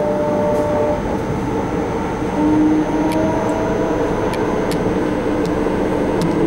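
MTR C-Train metro car running on the line, heard from inside the car: a steady rumble of wheels on rail with a steady whine from the traction motors. A few faint sharp ticks come about halfway through.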